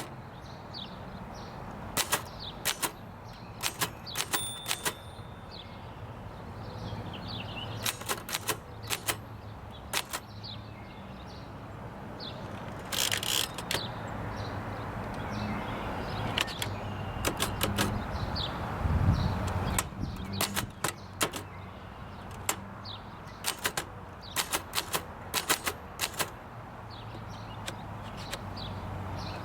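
Remington Portable 5 manual typewriter being typed on: irregular runs of sharp key strikes broken by short pauses, with a longer rasping sound about thirteen seconds in.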